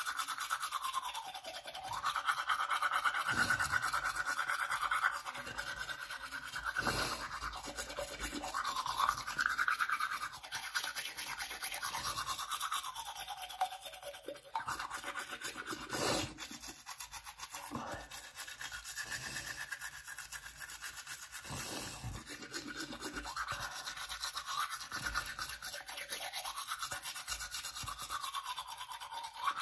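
Manual toothbrush scrubbing teeth through a mouthful of toothpaste foam: fast wet back-and-forth brushing whose tone shifts as the mouth opens and closes, with a few louder clicks along the way.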